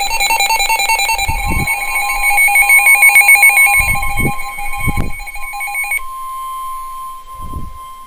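Emergency Alert System alert tones: a harsh, rapidly pulsing data-like buzz until about six seconds in, overlapped from about a second in by a steady single-pitched attention tone that then sounds alone. A few low thuds can be heard underneath.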